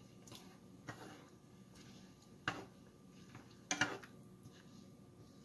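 Wooden spoon stirring a thick chicken and yogurt stew in a pan, knocking against the pan three times, the last knock the loudest.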